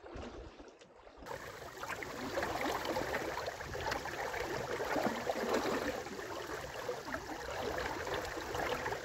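Lake water splashing and gurgling along the hull and yellow outrigger float of a small sailing trimaran under way. It gets louder about a second in and then runs on steadily, with a low rumble underneath.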